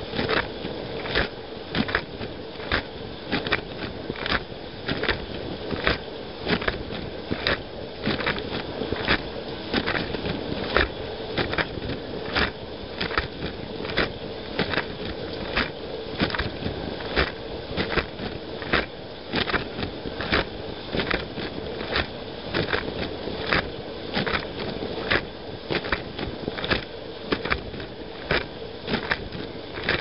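Running dishwasher heard from inside the tub: a steady rush of water spray and pump, with sharp splashes of water striking a little more than once a second, as a rotating spray arm sweeps its jets past.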